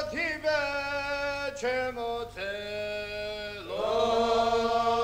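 Men's voices singing a slow chant, holding long notes that each begin with an upward swoop, with a change of note every second or so.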